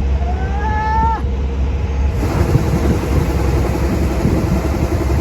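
An engine running steadily with a deep hum. Early on there is one short, rising, meow-like call. About two seconds in, a hiss and a fast, even rattle join the engine sound.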